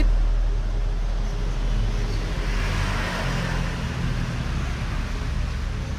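Road traffic noise: a steady low rumble, with a vehicle passing that swells loudest about three seconds in.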